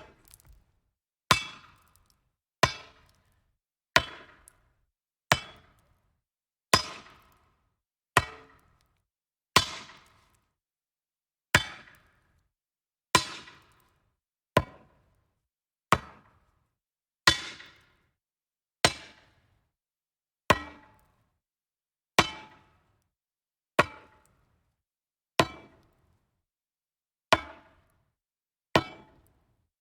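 A metal object striking wood: a series of about twenty separate sharp hits, one every second and a half or so, each dying away quickly with a short ring.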